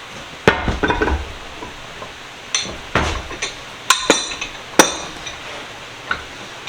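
Irregular metal knocks and clinks, about seven in all, a few ringing briefly, from steel tools and vise parts being struck or set down on a workbench.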